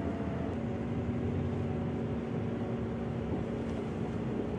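Car driving at steady speed, heard from inside the cabin: a constant engine and road hum with a low steady drone.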